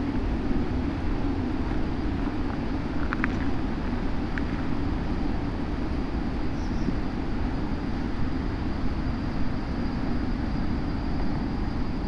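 Kawasaki Versys 650 parallel-twin engine running steadily at low speed as the motorcycle rolls slowly along.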